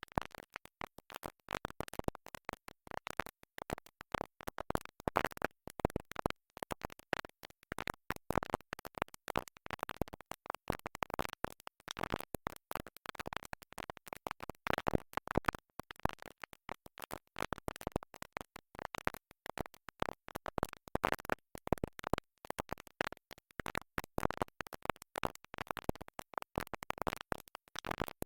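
Music stuttering like a stuck record: tiny fragments of a song skip and repeat in rapid, choppy cut-ups, with scratchy clicks between them.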